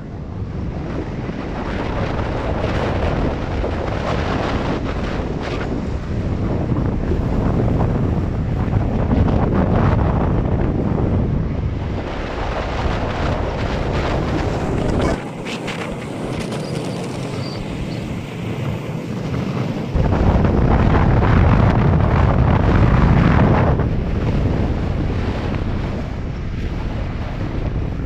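Strong wind buffeting the microphone over the noise of high surf breaking, surging louder and softer. For a few seconds past the middle the low wind rumble drops away, then comes back harder.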